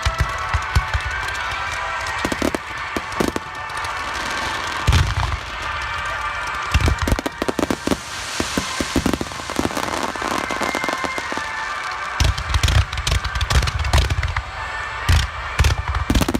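Aerial fireworks bursting at close range: a deep boom about five seconds in and a run of booms from about twelve seconds on, with many sharp crackles and a hissing shower in between.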